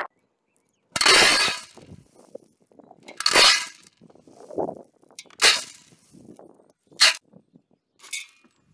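Handfuls of dry beans dropped into an empty metal pot, rattling and clattering against the metal: five pours, a second or two apart, with faint rustling of beans being scooped between them.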